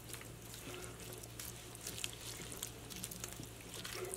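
A spoon stirring chopped kale through a pot of soup: faint wet squishing with scattered light ticks.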